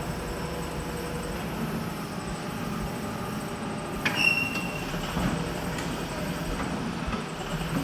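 Backhoe loader running with a steady low rumble; about four seconds in, a sharp metallic clank rings briefly with a high squeal.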